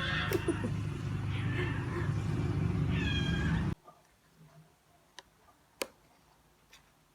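A cat meowing a few short, falling calls over a steady background hum. The sound cuts off abruptly a little before four seconds in, leaving a quiet room with a few light clicks.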